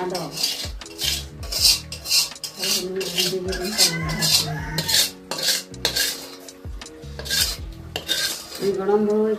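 Metal spatula scraping and clattering around the inside of a metal wok over a wood fire, in quick repeated strokes of roughly two a second.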